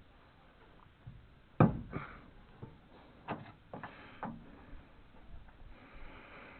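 Irregular clanks and knocks of hand tools on the truck's rusty bolts, about eight separate strikes with the loudest about a second and a half in, and a short faint hiss near the end.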